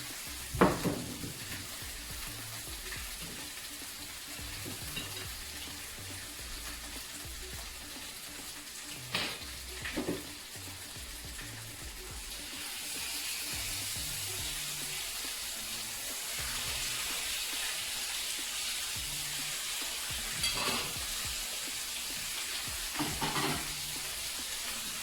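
Food frying in a hot pan on the stove, a steady sizzle that grows louder about halfway through, with a few short knocks of utensils or plates.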